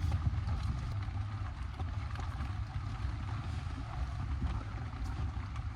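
Steady rain with wind buffeting the microphone as a low, uneven rumble, and faint scattered taps of drops.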